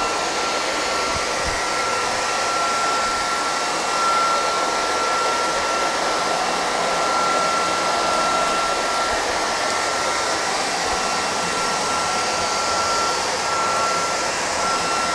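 Redroad 17 Lite cordless stick vacuum running steadily with a high whine as its motorised brush head is pushed over laminate flooring.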